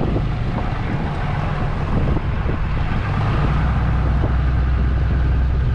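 Pickup truck driving: a steady low engine drone with road noise. The hum shifts lower about four seconds in.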